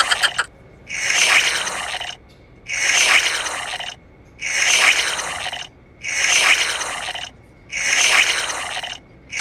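A person hawking and rasping in the throat in a steady rhythm of about six strokes, each a little over a second long with short pauses between, working up saliva for a PCR test sample.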